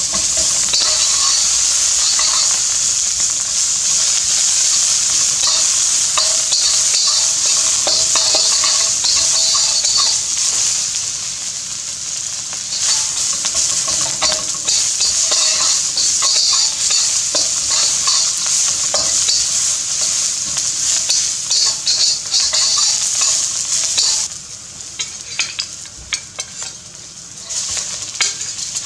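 Bacon and red onion sizzling hard in a hot carbon-steel wok, stirred with a metal slotted spatula that scrapes and clinks against the pan. Near the end the sizzle drops sharply and turns patchy as cooked rice goes into the wok.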